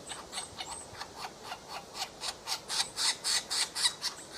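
A woodpecker pecking at wood, a steady series of short taps about four a second.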